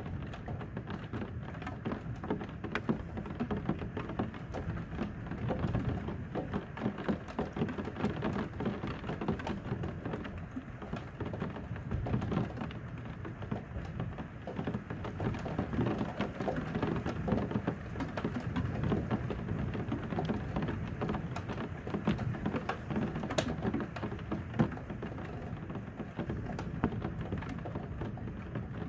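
Rain falling steadily onto a hard surface, with many sharp drop ticks, under a low rumble of thunder that swells and eases twice.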